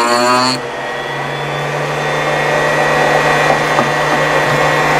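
Router in a router table running at full speed while a chamfer bit cuts the edges of a hard maple and walnut mallet head blank. A steady high whine about half a second in turns into a rougher, noisier rush over a constant low hum.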